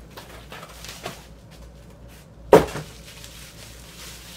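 Cardboard mailer and bubble wrap handled as a vinyl record is slid out, with soft rustling and a small click about a second in, then one sharp knock about two and a half seconds in.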